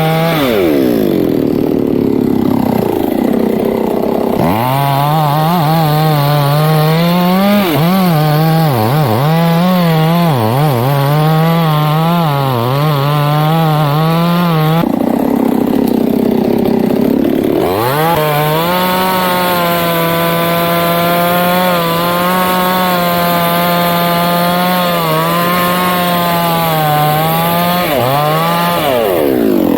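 Chainsaw cutting into the base of a teak tree at full throttle, its pitch wavering and dipping as the chain bogs in the wood. The throttle is eased off and opened up again twice, about a second in and about halfway through, and eased off once more near the end.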